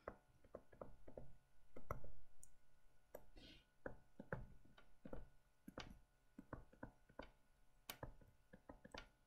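Faint, irregular taps and clicks of a stylus on a tablet screen as words are handwritten, a few strokes a second with short quiet gaps.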